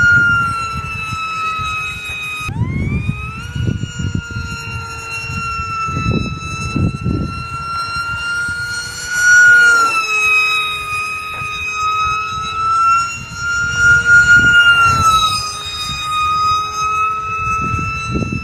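Brushless motor and small 5x4 propeller of an electric foam RC jet whining at high throttle, the pitch wavering as the plane flies. The pitch drops sharply about two and a half seconds in, then climbs back, with a couple more rises and falls later. Wind gusts rumble on the microphone underneath.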